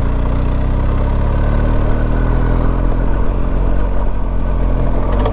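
BMW GS motorcycle engine running steadily at low revs as it pulls up a steep road, heard from the rider's seat.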